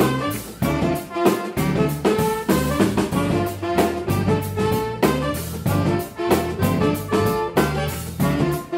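Funk music with a horn section playing over bass and drums on a steady beat.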